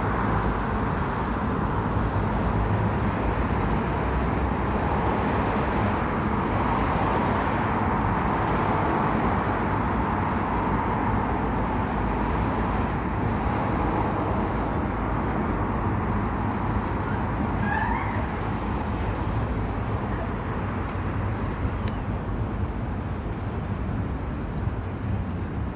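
Steady low engine rumble with a continuous wash of outdoor noise, unchanging throughout. A brief faint rising sound about eighteen seconds in.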